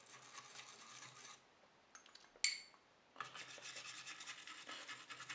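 Faint, fast scratching of a stiff antistatic brush scrubbed over a circuit board, working dried, melted-on damping material off the amplifier board. The scrubbing pauses for about two seconds partway through, with a click and a short ringing ping, then starts again.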